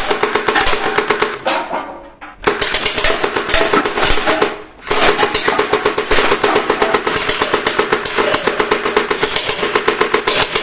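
A battery-powered toy machine gun's electronic firing sound: fast, even rattling over a steady tone, in long bursts. It breaks off about two seconds in and again near the five-second mark, then runs on.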